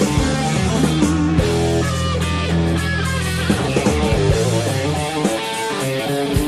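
Background rock music led by guitar over a sustained bass line, with a steady beat.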